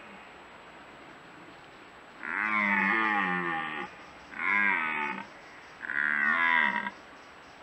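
Young red deer stag roaring in the rut, three calls in a row: a long one, then two shorter ones, each rising and falling in pitch.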